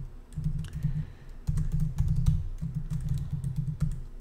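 Typing on a computer keyboard: quick runs of keystrokes that start about half a second in, with a short pause a little after the first second.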